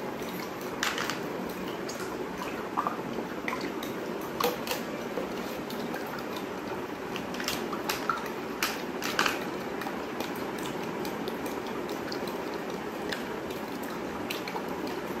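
A plastic spoon stirring sugar into water in a drinking glass, with irregular light clicks as the spoon knocks against the glass, over a steady background hiss.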